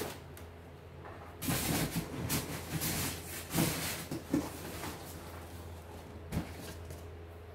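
Rustling and scraping of cardboard, plastic wrap and a styrofoam tray being handled as a parcel is unpacked, with a single sharp knock about six seconds in, over a steady low hum.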